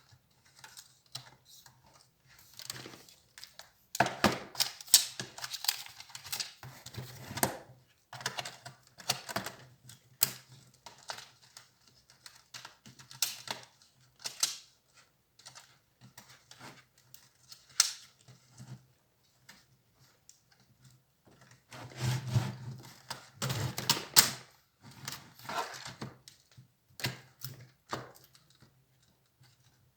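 Irregular clicks, taps and scrapes of small plastic and metal parts being handled while an HP Compaq 6910p laptop is taken apart, with denser clattering twice: about four seconds in and again past twenty seconds.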